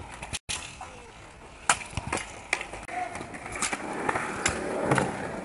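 Stunt scooter's hard wheels rolling over skatepark concrete, with a string of sharp clacks from the deck and wheels striking the ground. The rolling grows louder about four seconds in as the scooter passes close.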